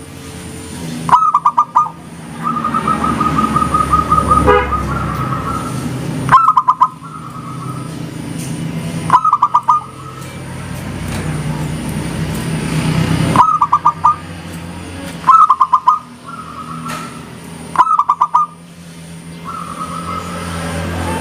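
Zebra doves (perkutut) cooing: about six short bursts of rapid, rolling notes, each under a second and repeating every few seconds, plus a longer even trill a couple of seconds in. A steady low rumble runs underneath.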